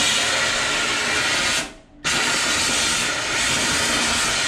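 Pedal-operated teddy-bear stuffing machine blowing stuffing through its nozzle into a bear: a steady rushing hiss that cuts out about a second and a half in and starts again about half a second later.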